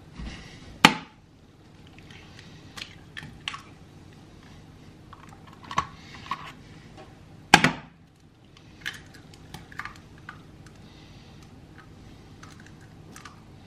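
Eggs being cracked open by hand over a frying pan: two sharp cracks of shell, one about a second in and one about seven and a half seconds in, with smaller shell clicks and taps in between and after.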